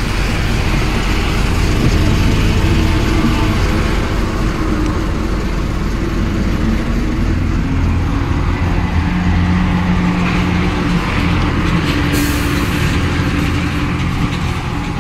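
Diesel truck engines running close by, a steady low drone with traffic noise, and a short hiss of air late on.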